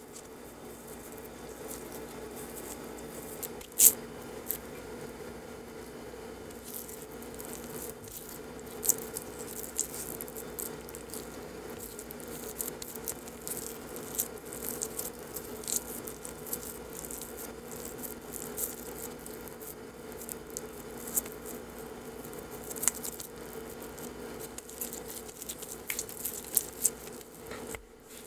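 Hands pressing and wrapping soft, oily mooncake dough around a nut filling: small sticky squishes and light taps against a wooden board. One sharper knock comes about four seconds in, over a steady low hum.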